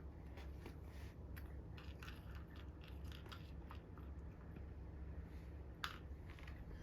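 A toddler chewing and biting food: a run of soft, crunchy mouth clicks, with one sharper click near the end.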